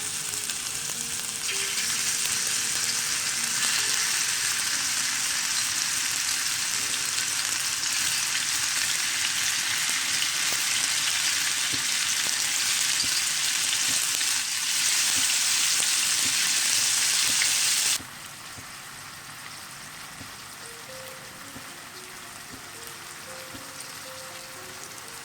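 Marinated chicken strips sizzling loudly as they shallow-fry in hot oil in a pan. The sizzle grows louder in a few steps, then drops suddenly to a quieter sizzle about eighteen seconds in.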